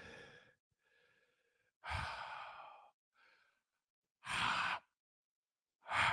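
A man's heavy sighs and open-mouthed exhales, several in a row a second or two apart, the last ones the loudest. They are his reaction to the burn of an extremely hot chili chocolate in his mouth.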